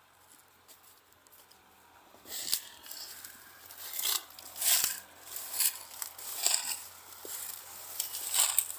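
Irregular dry rustling and crackling that starts about two seconds in, in uneven bursts.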